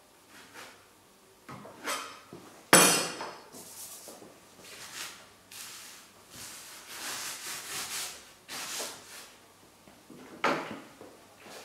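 Paintbrush scrubbing and scraping oil paint onto a canvas in a run of strokes. There is a sharp knock about three seconds in, the loudest sound, and another one near the end as tools are handled at the palette table.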